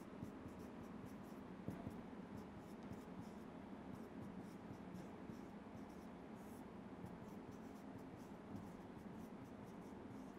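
Marker pen writing on a whiteboard: faint, quick, irregular scratchy strokes over a low room hiss.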